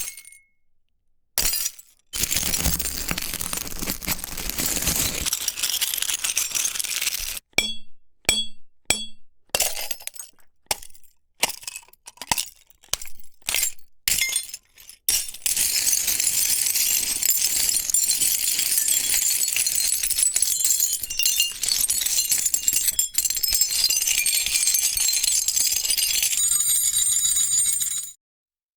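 A sequence of designed magic sound effects with glassy shimmers and clinks. About a third of the way in comes a run of short chiming hits. Then a long, dense, high crackling shimmer ends in ringing tones and cuts off suddenly.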